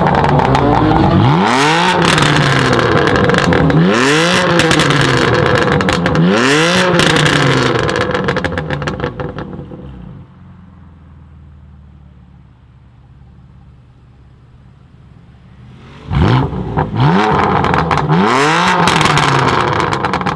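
BMW M3 F80's twin-turbo straight-six through a full titanium Innotech Performance Exhaust, loud and revving hard. Its pitch rises and falls again and again, about every two and a half seconds. The sound fades away about eight seconds in, then returns abruptly and loud with more rising and falling revs near the end.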